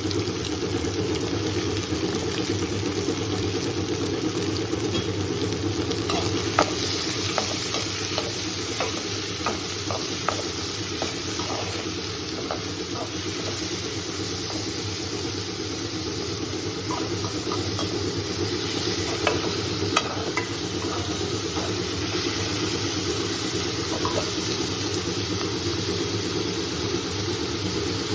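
Food sizzling in a pan while being stirred, over a steady low hum. Light clinks of the spoon against the pan come in a run from about six to thirteen seconds in, and a few more later.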